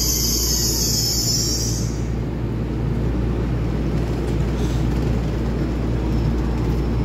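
A TRA EMU3000 electric multiple unit stands at the platform with a steady low rumble. A high-pitched steady ringing carries on over it and stops about two seconds in.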